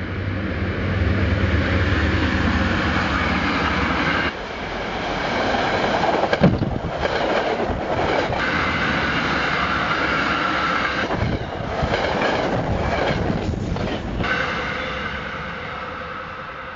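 Passenger train passing close by: a steady low engine hum as it arrives, then a loud rolling clatter of wheels over the rail joints, dying away near the end as it moves off.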